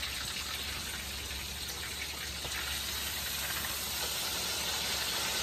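Hot oil sizzling steadily around a whole red snapper frying in a pan, growing a little louder near the end.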